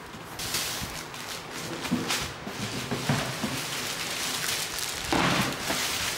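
Cardboard box flaps being opened and clear plastic wrapping rustling and crinkling as an item is unpacked, with a louder burst of crinkling about five seconds in.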